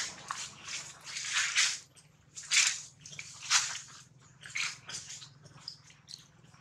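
Dry leaf litter rustling and crackling in short bursts as macaques shift about and handle a baby monkey on the leaves.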